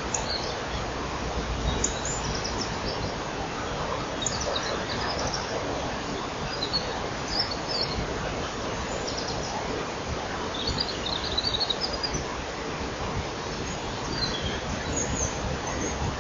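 Dawn chorus of small songbirds, European robin and wren leading: high, thin song phrases and quick trills come in short bouts over a steady background hiss.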